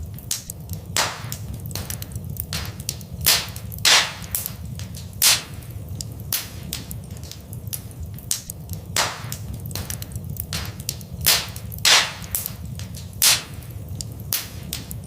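Fire in a fireplace crackling, with irregular sharp pops, a few much louder than the rest, over a steady low rumble of the flames.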